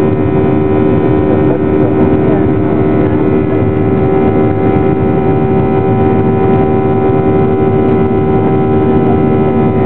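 Boeing 737-800's CFM56-7B turbofan engines at climb power, heard from inside the cabin over the wing: a loud, steady drone with several steady humming tones.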